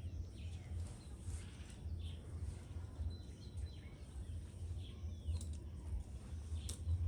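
Faint scattered bird chirps over a low, uneven rumble.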